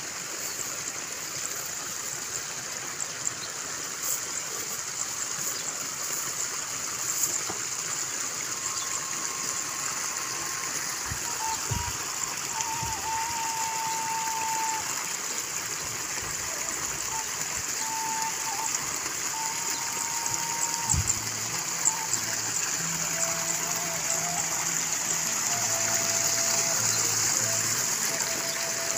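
Steady hiss of water trickling through flooded rice-paddy terraces, with background music of long held notes coming in about a third of the way through and a low bass line joining near the end.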